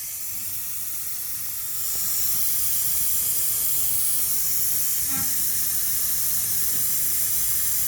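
Pressurised gas hissing steadily out of a burst in the outdoor-unit condenser coil of a Carrier commercial air conditioner, growing louder about two seconds in. The burst coil is the leak through which the refrigerant escapes.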